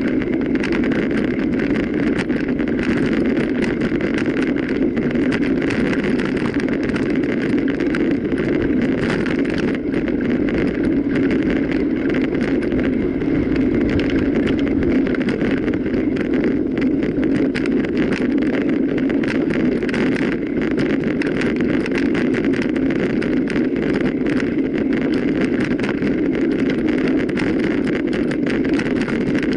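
Mountain bike being ridden off-road: a steady rush of wind and tyre noise, with a constant fine rattle.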